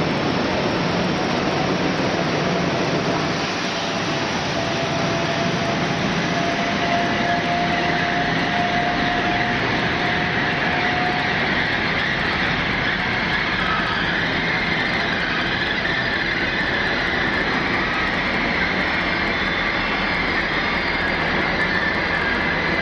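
High Speed Train (InterCity 125) diesel power cars working hard, a steady, loud engine noise. A tone rises slightly in pitch through the first half, and a high whine comes in about a third of the way through and holds.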